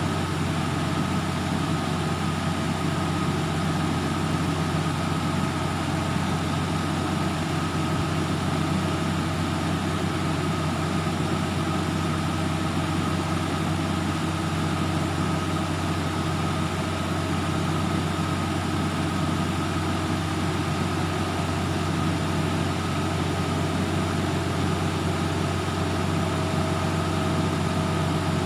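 Truck engine running steadily at idle, driving the hydraulic boom lift as it raises the work basket; a constant low hum with a faint steady whine above it.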